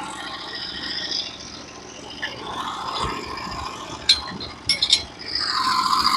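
Portable sawmill's engine running at low idle, with sharp metallic clinks and a brief rattle about four to five seconds in.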